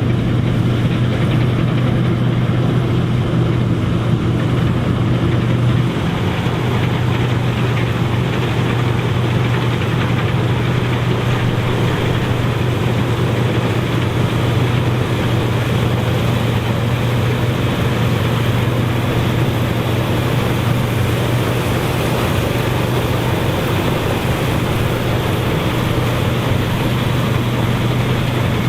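Massey Ferguson 630S self-propelled combine running steadily with a continuous engine drone, easing slightly about six seconds in.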